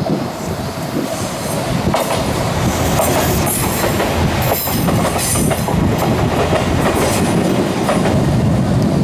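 Electric train on the Fujikyuko Line running past at close range, its wheels clacking over the rail joints, with a steady loud rumble throughout.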